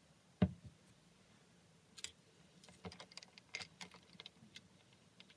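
A glass set down on a wooden tabletop with one low thump, then a scatter of light clicks and taps.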